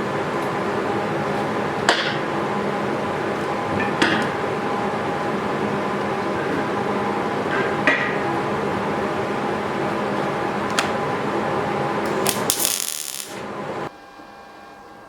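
A workshop machine running steadily with a hum, a few sharp metallic clicks over it, then winding down and stopping near the end.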